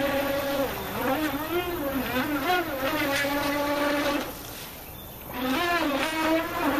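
Brushless electric RC speedboat motor whining, its pitch rising and falling repeatedly. The whine drops away about four seconds in and picks up again a second later.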